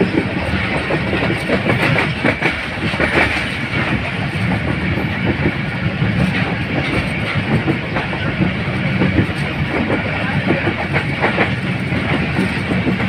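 Hazara Express passenger coach running along the track, heard from aboard: a loud, steady rumble of the wheels on the rails with frequent clacks over the rail joints.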